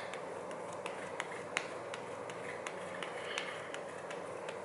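Cushion-compact sponge puff patting foundation onto the back of a hand: a string of soft, irregular taps, about three a second, over steady room hiss.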